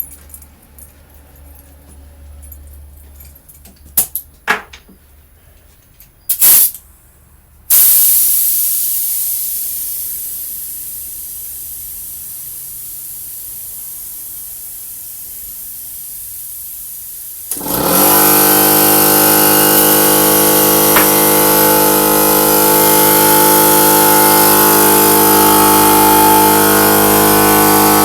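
Compressed air from a blow gun: a few short blasts, then a long hiss of air let out that slowly fades. About two-thirds of the way in, an electric air compressor kicks on and runs steadily, pumping back up once the pressure has dropped.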